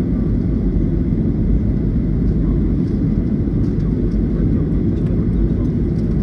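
Steady cabin rumble of a Boeing 737 airliner in flight on approach: jet engine and airflow noise heard from a seat over the wing, deep and unchanging.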